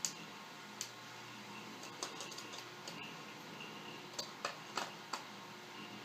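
Light, irregular clicks and ticks of a small screwdriver and tiny screws being worked out of a laptop's plastic screen housing, about ten in all.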